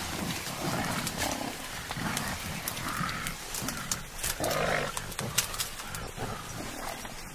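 Mountain gorillas grunting and calling as they climb in bamboo, with frequent clicks and rustles from the bamboo stems.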